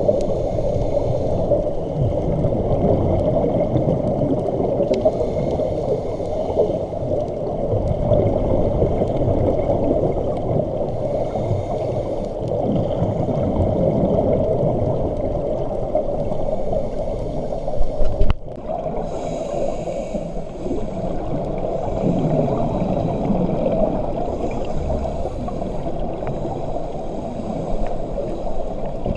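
Muffled underwater noise heard through a camera's waterproof housing, with a scuba diver's regulator breaths and exhaled bubbles coming every few seconds. A short knock comes about two-thirds of the way in.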